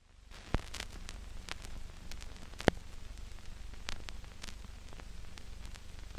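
Crackling static over a steady low rumble, with irregular clicks and pops and one sharp pop about two and a half seconds in.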